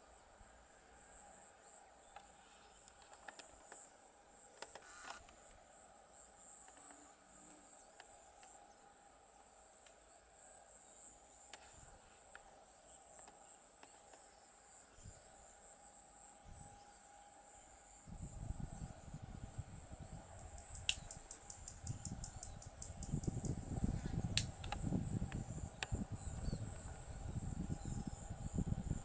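Insects chirping steadily, high-pitched, over a faint steady hum. From about two-thirds of the way in, an uneven low rumble rises and becomes the loudest sound.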